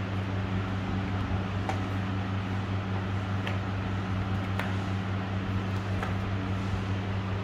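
Steady low mechanical hum over a constant hiss, with a few faint, sharp clicks scattered through.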